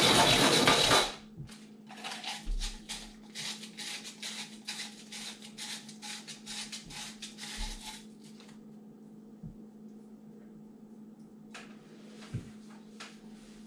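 The trimmed cut edge of an aluminium bottle being rubbed flat on sandpaper: a steady scratchy sanding that stops about a second in. After it come a run of quick light scrapes and clicks as the bottle is handled, then only faint occasional taps.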